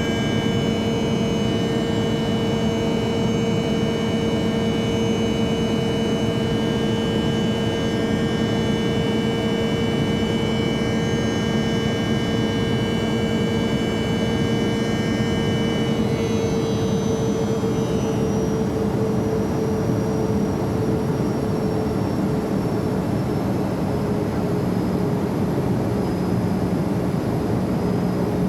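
Jet airplane engines running steadily: a constant rushing noise with a steady hum beneath and a cluster of high whining tones. Just past halfway the high whines drop away and one of them glides slowly lower, while the rush carries on.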